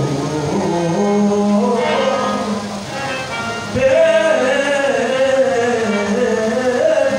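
Qawwali music: singing with instrumental accompaniment over a steady low drone. It gets louder about four seconds in.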